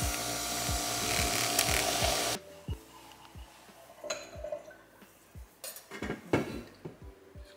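Handheld milk frother whirring as it whisks espresso and milk in a tall tumbler, stopping abruptly about two and a half seconds in. Background music with a steady kick-drum beat plays throughout.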